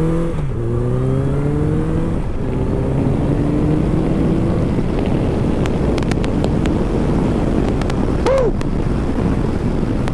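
Honda CB1100's air-cooled inline-four accelerating hard through the gears. Its note rises in each gear, drops at upshifts about half a second and two seconds in, then fades under wind rush from about four seconds in.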